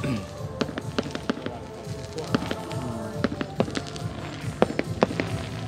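Distant aerial fireworks going off in an irregular scatter of sharp pops and bangs, with music playing underneath.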